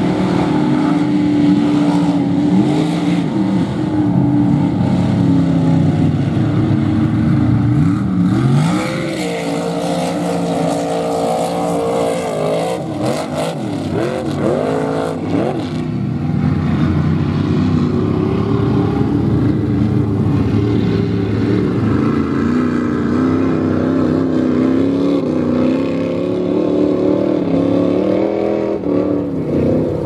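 Engines of lifted mud-bogging trucks on oversized tires running hard through a mud pit: loud and steady, with repeated quick revs up and down in the middle.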